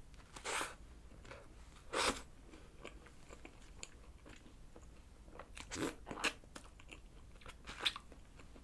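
Bites and chewing of a monaka ice-cream sandwich, sweet-corn ice cream in a wafer shell that the eater calls soggy. A few short, separate bites about a second in, at two seconds, and several more near the end, with quiet chewing between.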